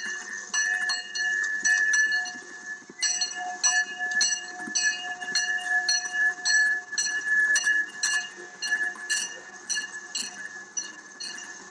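Steam locomotive bell on a Fort Wilderness Railroad 2-4-2T tank engine ringing continuously as the train passes, struck about twice a second with each stroke ringing on.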